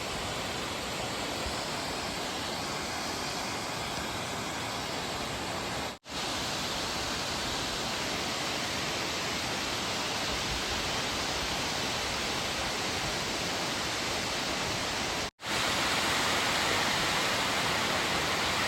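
Waterfall pouring, a steady rushing of falling water, briefly cut off twice.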